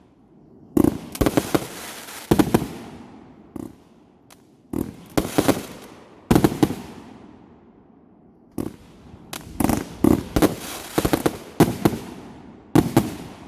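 Fireworks going off in repeated clusters of sharp bangs and crackling reports, each group trailing off in an echo, with short lulls between them.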